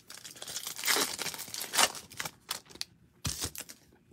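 Foil wrapper of a 2021 Topps Finest baseball card pack being torn open by hand and crinkling, crackling for the first two seconds or so, then a short rustle a little after three seconds as the cards come out.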